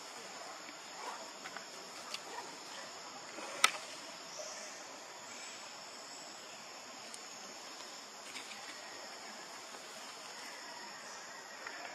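Steady high-pitched insect chorus droning in the background, with one sharp click a little past three and a half seconds in and a few fainter ticks.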